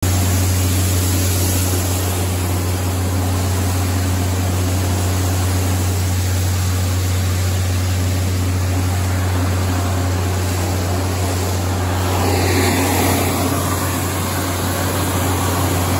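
REM VRX grain vacuum running off a tractor's PTO shaft while it cleans out a grain bin: a loud, steady hum under a constant rush of air and grain. The rush gets a little brighter about twelve seconds in.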